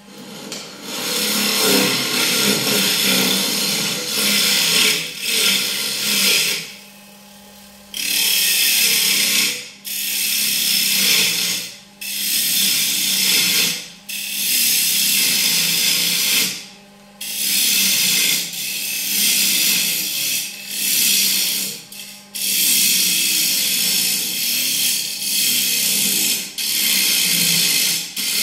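Wood lathe spinning a walnut blank, its motor humming steadily while a tool is pressed against the wood in a series of passes, each a loud hiss of one to a few seconds with brief pauses between, including a longer pause about seven seconds in.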